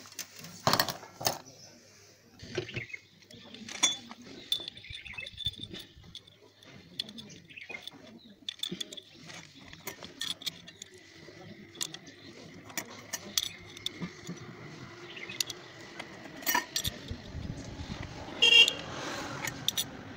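Motorcycle clutch parts clinking and clattering as they are handled: the metal clutch hub and its plates knock together with scattered sharp clicks, and there is one louder clack near the end.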